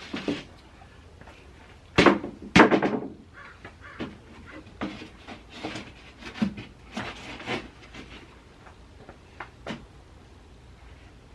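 Wooden shelf boards knocking against a bookshelf frame as they are test-fitted: two loud knocks about two seconds in, then a string of lighter knocks and rattles.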